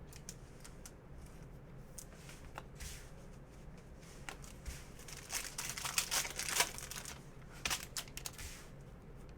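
Plastic trading-card pack wrapper crinkling and tearing open, with scattered light clicks of cards being handled; the crinkling is busiest midway through.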